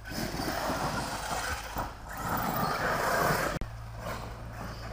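Radio-controlled car running over a dirt track: a loud rushing noise of motor and tyres that cuts off suddenly about three and a half seconds in.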